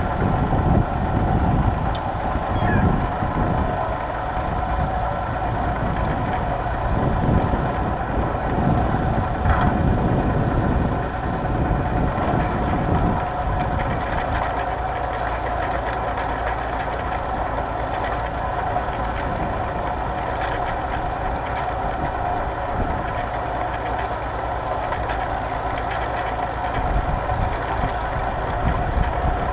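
Tractor engine running at a steady speed while pulling a plough, with a heavy low rumble that eases about halfway through.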